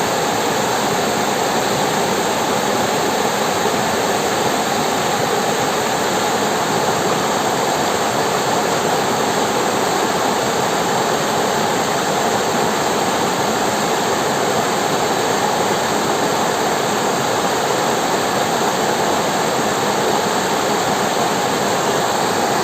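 River water rushing and splashing steadily over rocks, an even, unbroken noise.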